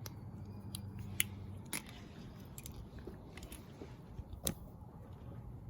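Scattered small clicks and light crunches from handling small parts, about eight in all and irregularly spaced, over a faint low hum that stops about a second and a half in.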